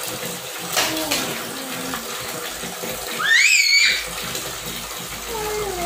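Tap water pouring steadily into a plastic basin of toy trucks, with a short high-pitched squeal a little past three seconds in.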